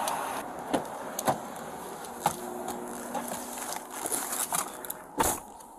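A police officer climbing into a Ford patrol SUV: scattered clicks and knocks of duty gear and the seat, then the driver's door shutting with a loud thud about five seconds in.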